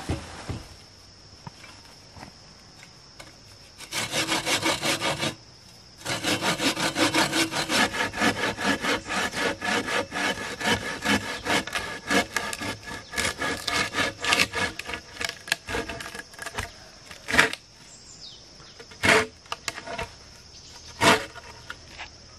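Hand saw cutting wood in quick, even back-and-forth strokes, with one short break early on, then three single knocks of wood near the end, over a steady high drone of insects.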